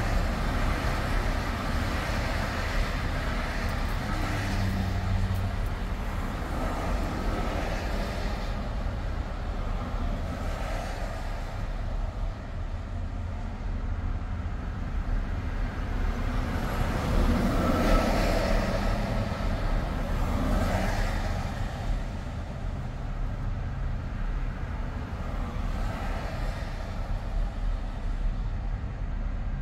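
Steady highway driving noise: tyre roar and low engine rumble of a car travelling at speed amid traffic, swelling and easing several times, loudest about 18 seconds in.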